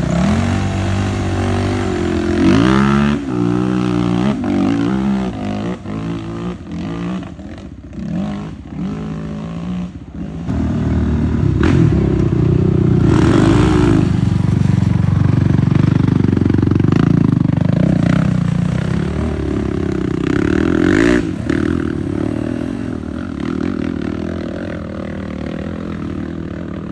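ATV engines revving hard through mud and up a dirt hill climb, their pitch rising and falling again and again as the throttle is opened and eased off.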